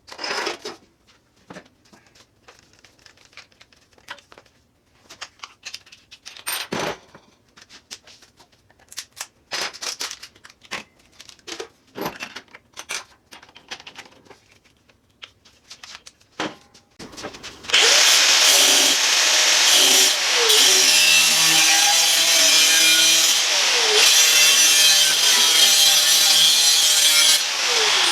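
Scattered clicks and knocks of metal being handled, then about 18 seconds in a power tool starts cutting the steel of an ammo can. It is a loud, steady whine whose pitch dips briefly a few times as the cut goes on.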